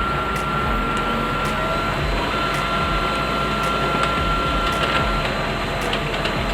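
Brother DCP-L2540DW laser printer running a test print after a new fuser unit, drum kit and toner cartridge have been fitted. Its motor and rollers make a steady whir with a high whine that drops out briefly about two seconds in and stops about five seconds in.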